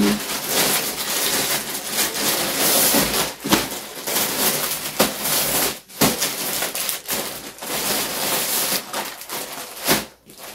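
Plastic mailer bag and plastic-wrapped packages rustling and crinkling as a parcel is unpacked by hand, in irregular bursts broken by a few short pauses.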